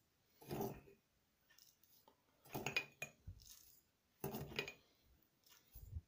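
Teaspoon scooping sugar from a ceramic sugar bowl and clinking against it, three times about two seconds apart, as sugar is spooned onto egg yolks.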